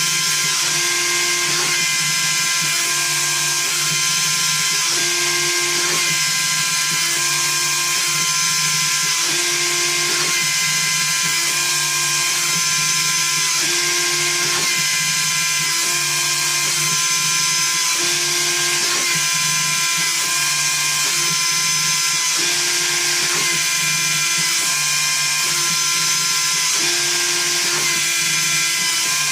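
A small CNC router's high-speed spindle whines steadily while it mills a wooden keycap. Its tones shift in a repeating pattern about once a second as the machine moves back and forth along its toolpath.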